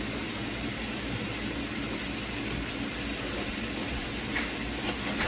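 Chunks of beef brisket frying in oil in a skillet: a steady sizzle, with a couple of faint clicks near the end.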